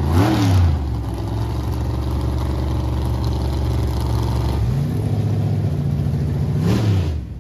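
A drag-racing car's engine blipped in a sharp rev, settling into a rough steady idle that steps up in speed partway through, revved once more and then shut off abruptly near the end.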